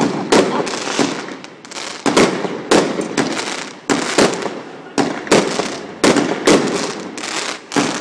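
Fireworks display: aerial shells bursting in a rapid, irregular string of sharp bangs, about two or three a second.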